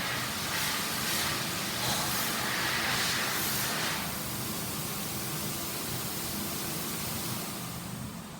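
Mitsubishi EF-40DSB2 industrial pressure ventilation fan running: a steady rush of air over a low hum, louder and hissier for the first four seconds, then steady.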